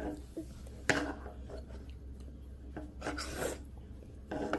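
Metal spoon scraping and clinking against a ceramic bowl as the last of a porridge is scooped out, the bowl being scraped clean. There is a sharp clink about a second in and a longer scrape near the three-second mark.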